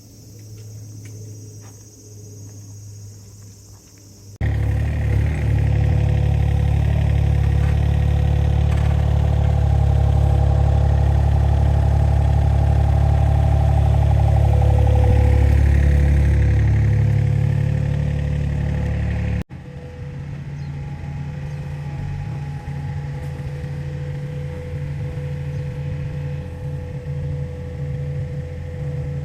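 Small hydraulic excavator's diesel engine running steadily, with a low, even drone. About four seconds in it cuts abruptly to a loud, close sound. About two-thirds of the way through it cuts abruptly to a quieter sound of the same kind.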